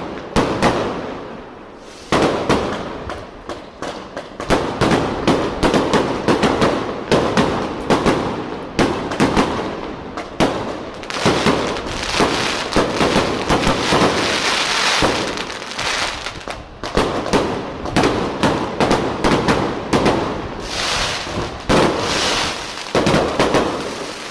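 Fireworks display going off: a dense, continuous run of bangs and crackles, several a second, with a slightly quieter stretch about two to four seconds in.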